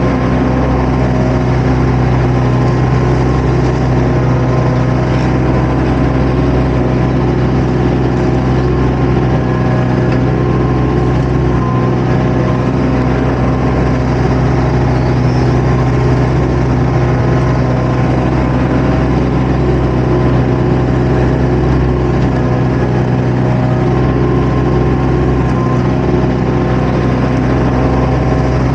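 Compact construction machine's diesel engine running steadily at an unchanging speed.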